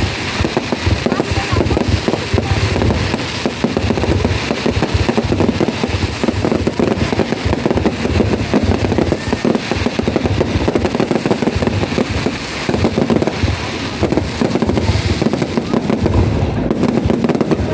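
Fireworks display going off densely: a continuous run of rapid bangs and crackles with no let-up.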